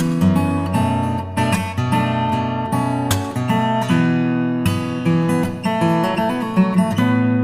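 Background music: strummed acoustic guitar with a quick run of plucked notes.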